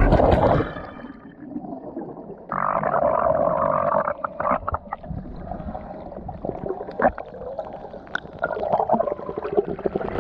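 A splash as someone jumps into the sea, then the muffled sound of being underwater: bubbling and scattered sharp clicks, with the high end dulled.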